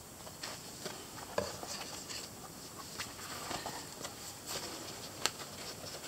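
Rustling and scuffing of split-cowhide leather work gloves being handled and pulled onto a hand, with scattered light clicks and taps, the sharpest about five seconds in.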